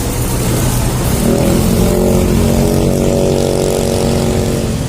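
Bus engine revving: the pitch climbs about a second in, then holds at high revs for a few seconds and eases off near the end, over a steady low rumble.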